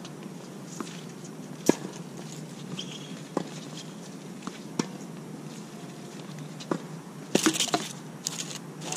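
Tennis balls struck by racquets and bouncing on a hard court during a rally: sharp pops roughly every second and a half, the loudest about two seconds in, then a quick cluster of scuffs and clicks near the end.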